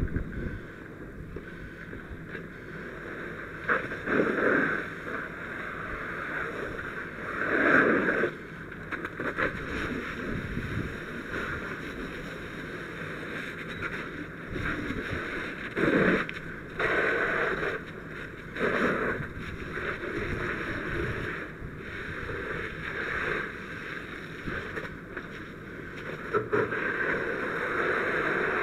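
Fire hose nozzle flowing water onto a house fire during knockdown: a steady rushing spray that swells louder in short surges several times.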